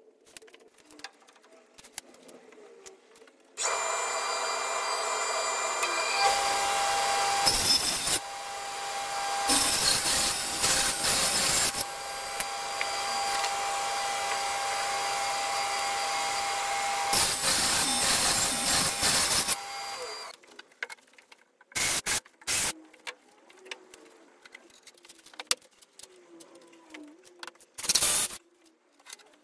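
Table saw running and cutting OSB board, its motor note steady, with several louder passes as the blade goes through the board before it winds down. Near the end, a few short bursts of a cordless drill driving screws through the OSB into the wall.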